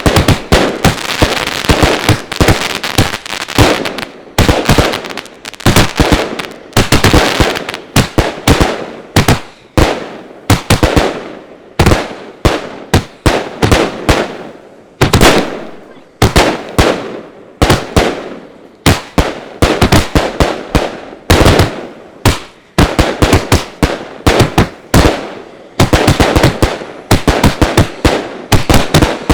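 "Bermuda Triangle" multi-shot fireworks cake firing, heard close to the box: volleys of sharp bangs, several a second, with noisy tails between them.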